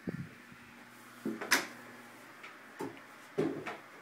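A handful of short, separate knocks and clunks from a door being pushed open and things being handled in a small bathroom.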